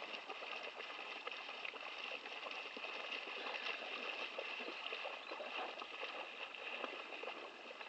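English springer spaniel running through shallow floodwater, a continuous rush of small splashes.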